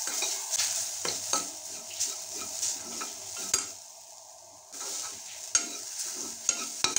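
Slotted metal spoon stirring and scraping grated coconut as it dry-roasts in a metal kadai, with repeated scrapes and clinks against the pan over a soft sizzling hiss. The stirring pauses briefly just before the middle, then resumes.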